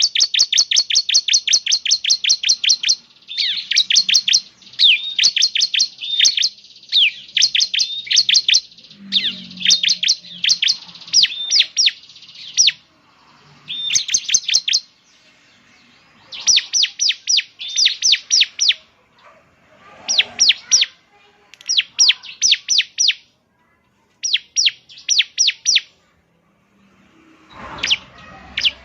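Bar-winged prinia (ciblek) singing: rapid runs of sharp, high chirps, about nine a second, in bursts of one to three seconds with short pauses between them.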